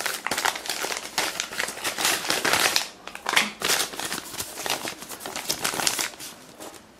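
Crumpled paper parcel wrapper crinkling as it is handled and turned over in the hands, with irregular crackling that dies down about six seconds in.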